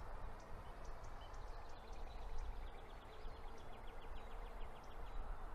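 Outdoor ambience with wind rumble on the microphone. From about two seconds in until near the end, a trill of rapid short high notes, about eight a second, comes from a small animal.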